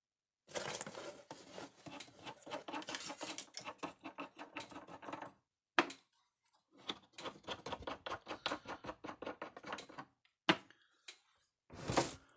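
Rapid rattling clicks of plastic terminal knobs being spun off and onto threaded terminal posts of a Stafix X18i fence energizer, in two runs of several seconds each. A few sharp knocks follow as the unit is shifted on the workbench.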